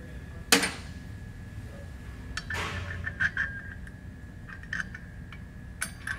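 Metal clicks and clinks as a pump and its bolts are handled against a stainless steel bracket plate, with a sharp click about half a second in, a brief rustle near three seconds, and a few lighter clicks later. A faint steady high hum runs underneath.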